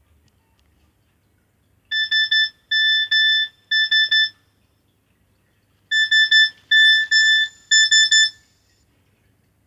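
Nokia 6300 mobile phone playing a ringtone through its small built-in speaker: two phrases of three short, high, warbling bleeps each, with a pause of about a second and a half between the phrases.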